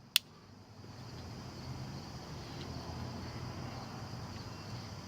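A single sharp metal click from the budget Mossy Oak multitool being handled, just after the start, followed by low, steady background noise.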